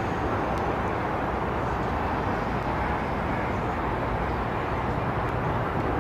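Steady jet engine noise from an airliner climbing out after takeoff, with wind buffeting on the microphone.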